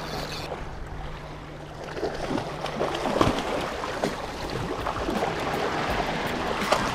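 Waves washing against jetty rocks. From about two seconds in there are short knocks and rustling as clothing brushes against the camera.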